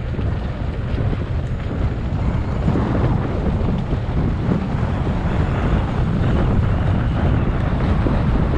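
Wind buffeting the microphone of a camera on a mountain bike riding along a dirt trail, a dense rumble mixed with tyre and bike noise, growing a little louder.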